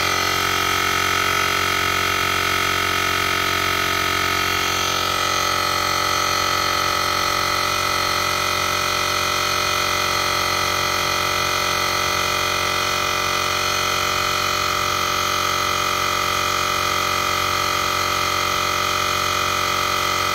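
Portable rechargeable digital air compressor (model JM-8817) running steadily as it pumps up a tire, a constant whine from its small motor and pump.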